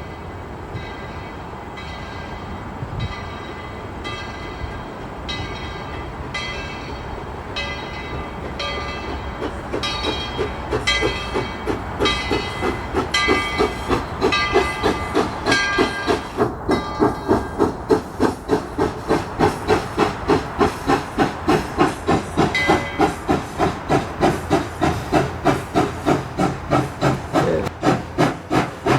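Steam locomotive working, its exhaust chuffing in an even beat that quickens from slow, spaced beats to about two and a half chuffs a second and grows louder as the engine gathers speed, with steam hissing.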